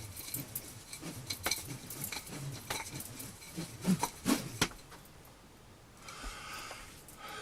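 Nunchaku being swung, the handles and chain clinking and clicking in an irregular run that thins out about five seconds in.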